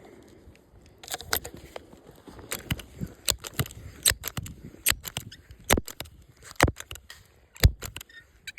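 Footsteps, a sharp crunch at each step, coming irregularly about two to three times a second and starting about a second in.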